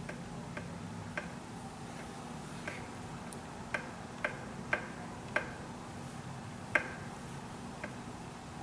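Irregular sharp metallic clicks, about ten of them a half-second to a second and a half apart, from hand tools and hardware while the injector hold-down bolts are fitted on an 8.3-litre Cummins cylinder head. A faint steady hum runs underneath.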